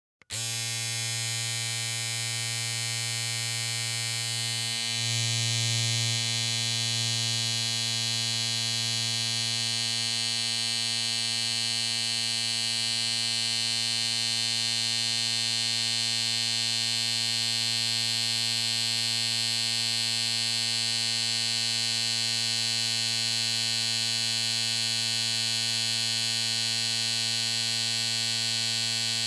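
Electric hair clippers switching on and running with a steady buzz, which gets slightly louder about five seconds in.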